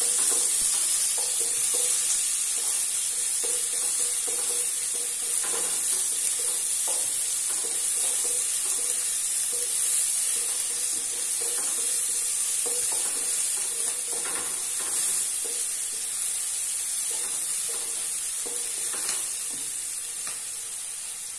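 Chopped onion and a bay leaf sizzling in hot oil in a pan, stirred with a wooden spatula that scrapes and taps against the pan now and then. The sizzle is steady and eases slightly toward the end.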